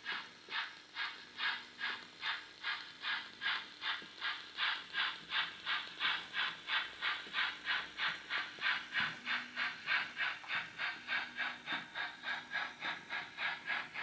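H0-scale model G 4/5 steam locomotive's sound module playing an even, rhythmic steam chuff through its small loudspeaker, about three chuffs a second and getting slightly quicker as it hauls its train, with a faint motor hum underneath.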